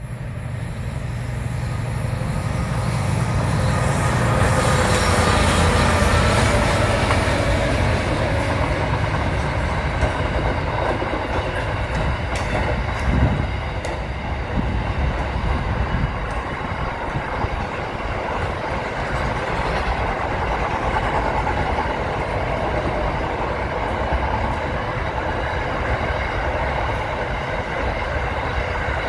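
SCT intermodal freight train passing close by: the diesel locomotives' engines hum loudest in the first several seconds, then container wagons roll past in a steady rumble and clatter, with a brief louder knock about halfway through.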